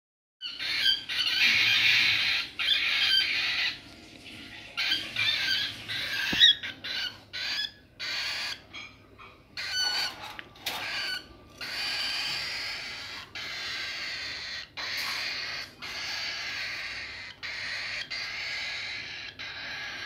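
Cockatiel chicks making raspy, hissing food-begging calls: hungry chicks crying to be fed. The calls come in short bursts at first and run almost without a break from about halfway through. A single sharp click sounds about six seconds in.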